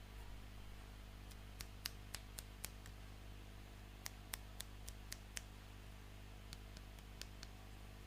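Light, sharp clicks and taps of small plastic toy pieces being handled, in three short runs of several clicks each, over a faint steady hum.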